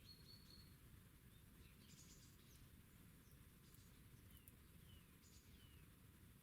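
Faint calls of small birds over a quiet background: a thin, high whistle held briefly near the start, then three short falling chirps in the second half.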